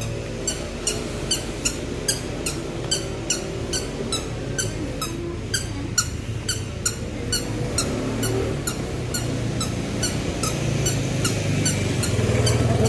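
A short, high squeak repeating evenly about two and a half times a second, over a low steady hum.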